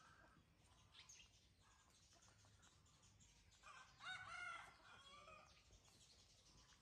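Near silence with a few soft clicks, then a brief burst of faint squeaky animal calls about four seconds in.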